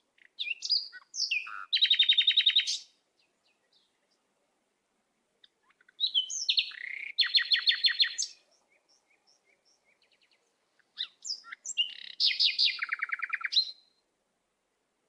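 A songbird singing three phrases about five seconds apart. Each phrase is a few short whistled notes followed by a fast, high trill.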